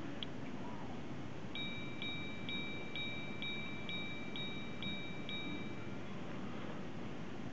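Girard-Perregaux 1966 Minute Repeater chiming: a small click, then its hammer strikes the gong nine times, about two strikes a second, each a bright ringing tone. The last strike rings on briefly.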